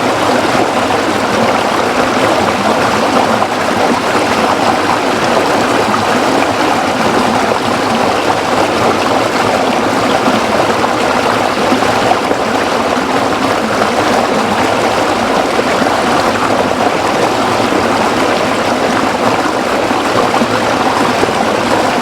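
Running water of a stream, a steady even rush with no changes.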